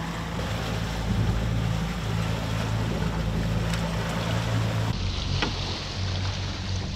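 Boat engine running steadily at trolling speed, a low even hum, with water rushing along the hull and wind.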